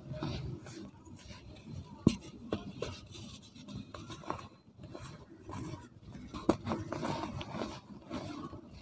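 Hands crumbling a lump of dried cement and sifting dry cement powder through the fingers: a soft gritty rustle and patter of falling powder, with a few sharp cracks as the lump breaks, the clearest about two seconds in and again past the middle.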